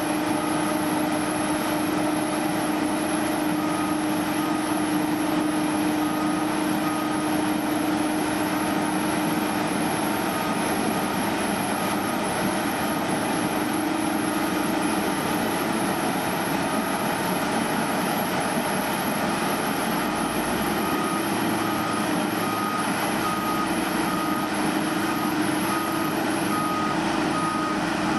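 Sand-slinging conveyor truck running at a steady drone, with a backup alarm beeping about twice a second for a few seconds near the start and again from about two-thirds of the way through.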